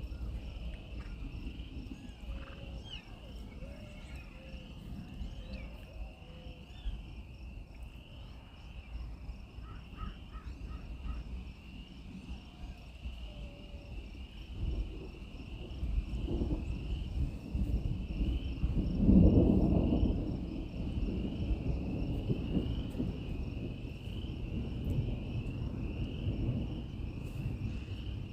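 Crickets chirping in a steady, pulsing trill, with a low rumble of thunder that builds past the middle and peaks about two-thirds of the way in before fading.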